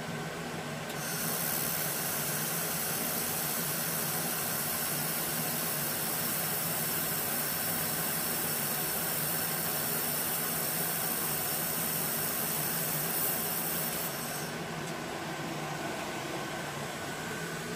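2000 W Denaliweld Jet handheld laser welder running a weld along an 18-gauge stainless steel corner: a steady high hiss starts about a second in and cuts off near fourteen seconds, over the constant hum of the air-cooled welder's fan.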